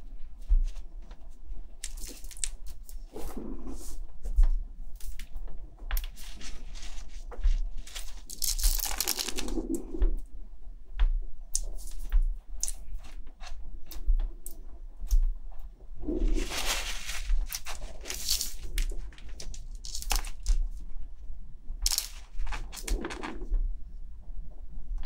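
Tissue paper rustling and crinkling in irregular bursts, some a second long and some several seconds, as hands wipe a newborn kitten's face, over a low steady hum.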